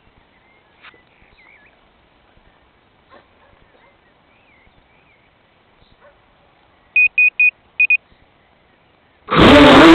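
Faint chirps, then three quick electronic beeps and two more about seven seconds in. Near the end the FPV racing quadcopter's motors spin up with a loud, rising whine.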